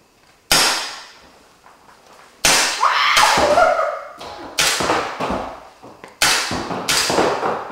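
Paintball markers firing during a game: about six loud, sharp shots at uneven intervals, each with a short ringing tail. A brief cry is heard about three seconds in.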